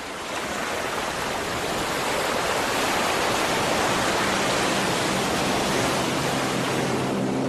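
Factory wastewater gushing steadily from an outfall into the sea, swelling over the first couple of seconds. A low steady hum joins about halfway through.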